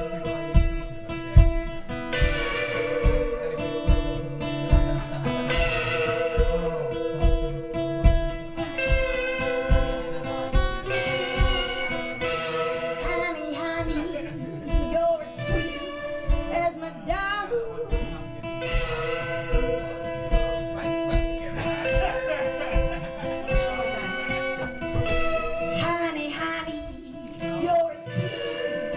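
Live folk-rock song: acoustic guitar and electric guitar playing together with a steady low beat, and a woman singing.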